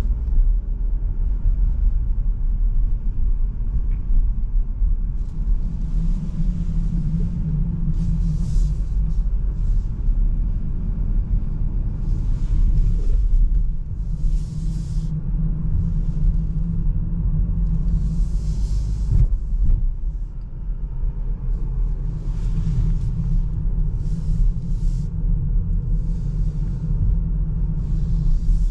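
A Seat Arona with a 1.5 TSI four-cylinder turbo petrol engine, driving on the road: a steady low rumble of engine and tyres, with brief hissing swells now and then.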